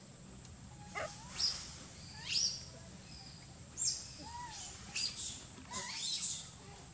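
Baby macaque squealing: a string of short, high-pitched calls that sweep sharply up in pitch, starting about a second in, as it is held against its mother.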